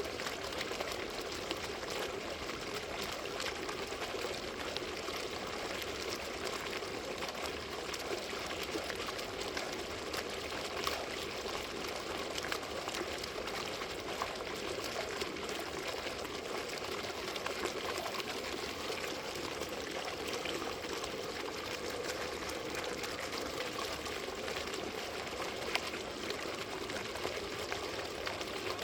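Water fountain running steadily: falling water splashing and trickling without a break.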